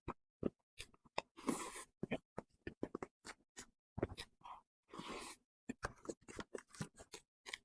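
Close-miked mouth sounds of eating soft cream cake: a quick run of short wet smacks and clicks, with two longer, noisier stretches about one and a half and five seconds in.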